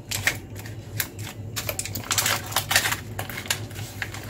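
Aluminium foil crinkling and tearing as it is peeled back from a block of milk cake: an irregular run of crackles, thickest about two seconds in.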